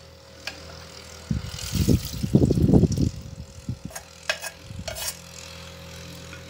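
Hot water and softened raw-mango pieces poured from a saucepan into a metal mesh strainer, splashing for about two seconds, then a few sharp clicks of the spoon against the pan and strainer. A steady low hum runs underneath.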